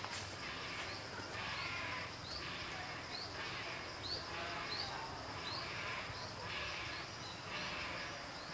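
Wildlife ambience of insects and birds: a steady high insect buzz with a short rising chirp repeated about every three-quarters of a second, over a hiss that swells and fades.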